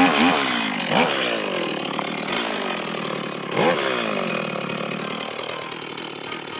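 Small STIHL two-stroke petrol chainsaw running, its engine revved up and back down about three times, then running more quietly as the level falls toward the end.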